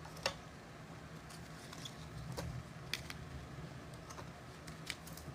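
Trading cards and plastic card holders being handled and stacked on a table: a few light, separate clicks and taps over a low steady hum.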